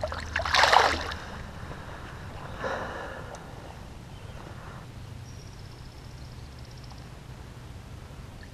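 A brief water splash about half a second in, as a released largemouth bass kicks away from a hand in the shallows, followed by a softer sound near three seconds and then a low steady outdoor background.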